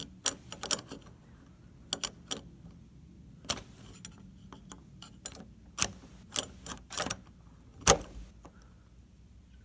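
Flathead screwdriver tip clicking and scraping on the small metal retaining clip of a Corbin Russwin door knob as it is pried off: a run of sharp metal clicks at uneven intervals, the loudest a little before the end.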